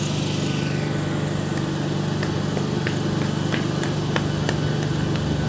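Steady low hum of a MEMU electric passenger train, with a scatter of light clicks from about two seconds in.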